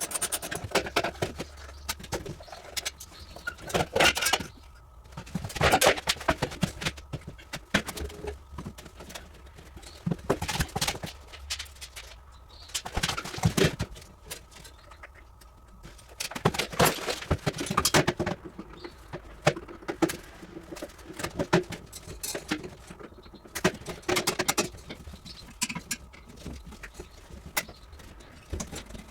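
Irregular knocks, clatter and scraping of hand tools and metal parts being handled while dismantling a prefab walk-in refrigerator's indoor unit.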